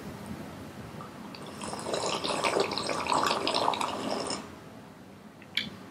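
Two people drinking from glasses, gulping and slurping, for about three seconds starting about a second and a half in. A short click follows near the end.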